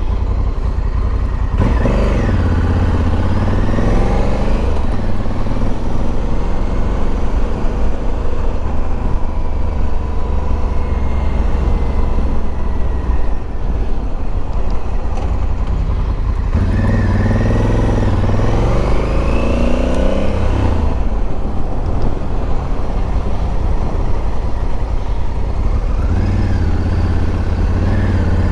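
A motorcycle riding on the road. The engine rises in pitch as it accelerates three times, near the start, past halfway and near the end, over a steady low rush.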